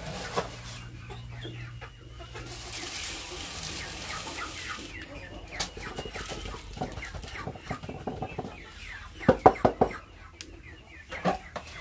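Chickens clucking, with a run of loud, quick clucks about nine and a half seconds in.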